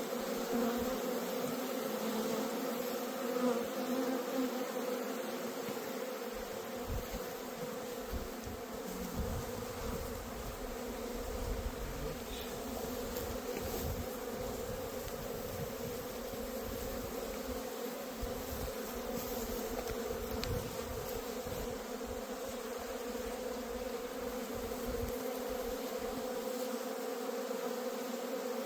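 Honeybees buzzing in a steady, dense hum, as from many bees around a hive, with an irregular low rumble coming and going through the middle.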